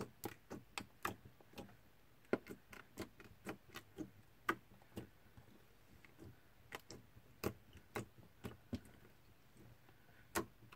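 Green slime being pressed and kneaded with the fingers, giving faint, irregular clicks and small pops, about two or three a second, as air bubbles trapped in it are squeezed.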